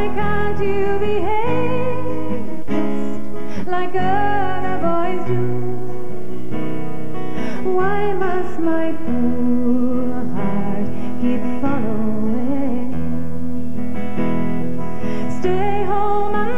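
A woman singing a slow folk ballad with a wavering, sustained melody, accompanied by acoustic guitar.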